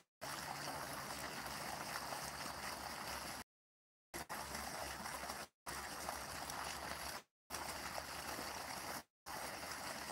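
Steady, even rushing outdoor noise that cuts out abruptly to dead silence about five times, for a fraction of a second up to nearly a second each: the live stream's audio dropping out as the phone's mobile connection comes and goes.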